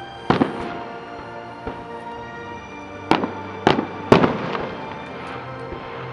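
Aerial firework shells bursting with sharp booms: one just after the start, a softer one, then three in quick succession around three to four seconds in, the last the loudest. Steady background music plays under the bursts.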